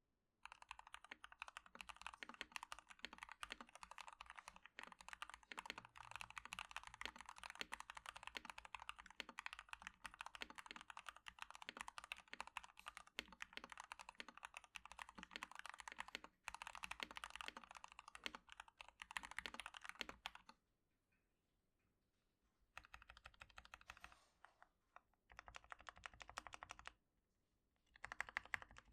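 Typing on a Hello Ganss HS87T mechanical keyboard with Gateron Yellow linear switches, a rapid run of key clacks. About twenty seconds in the typing stops briefly, then comes back in three short bursts.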